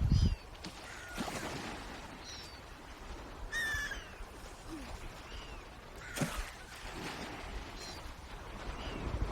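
Birds calling: short, high calls that fall in pitch, repeated roughly once a second, the loudest about three and a half seconds in, over a steady hiss of outdoor noise with a low rumble of wind at the very start.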